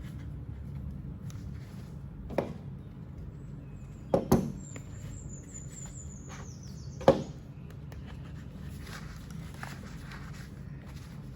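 Pliers being handled and pushed into a belt tool pouch: a few sharp knocks and clicks, the loudest about seven seconds in. A faint, thin, high tone drifts slightly downward in the middle, over a low steady hum.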